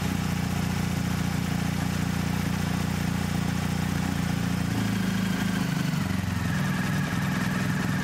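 BMW R1250GS boxer-twin motorcycle engine idling steadily, its note shifting slightly about five seconds in.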